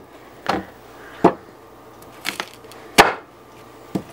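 Kitchen knife chopping ears of corn in half on a wooden cutting board: about five sharp, unevenly spaced knocks as the blade cracks through the cob and hits the wood.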